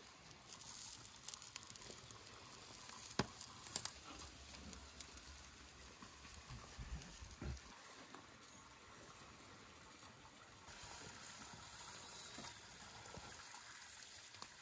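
Hot skewered grass carp kebabs, just out of the tandoor, sizzling on the tray, with a few sharp clicks of the metal skewers near the start.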